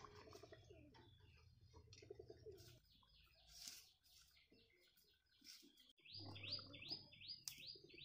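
Faint birds chirping. Near the end a bird gives a quick run of short, rising chirps, about three a second.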